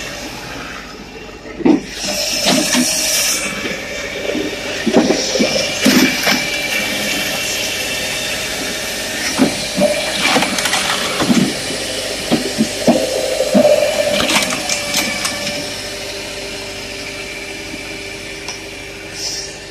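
Hakki Pilke 2X firewood processor running steadily, with repeated knocks and clatters of logs being cut and split and pieces tumbling through the machine.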